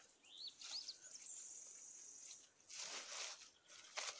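Short rising bird chirps and a thin high note held for about a second, then a brief rustle of dry leaves and grass about three seconds in as a mushroom is pulled from the leaf litter, with a small click near the end.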